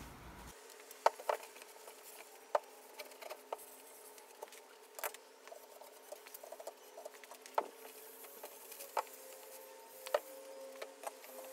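Cloth rag rustling and rubbing over flat wooden boards as it wipes off the excess of a second coat of wipe-on oil-varnish finish. A few sharp taps and knocks come now and then as the rag and boards are handled.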